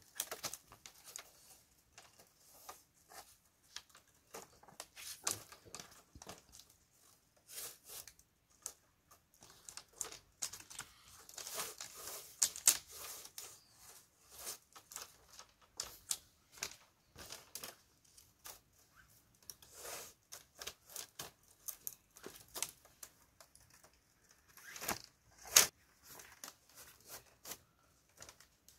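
Hand work on dry, brittle material: irregular cracks, tearing and rustling, with a louder snap about halfway through and the loudest one near the end.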